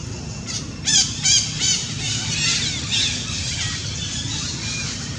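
A young long-tailed macaque's high-pitched squeals: a quick run of short rising-and-falling squeaks about a second in, then further fainter squeaks.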